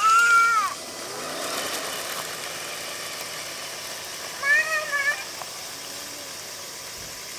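A young child's high-pitched wordless squeals: one at the very start and a few short ones about four and a half seconds in, over a steady faint hiss.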